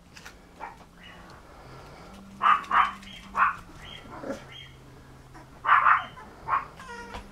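Small puppy barking in short, sharp yips: a few quick barks, a pause, then another cluster of barks, with a faint steady hum underneath.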